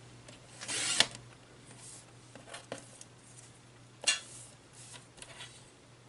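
Card stock being handled and cut on a paper trimmer: a short swish ending in a sharp click about a second in, another sharp click around four seconds in, and lighter taps and rustles between.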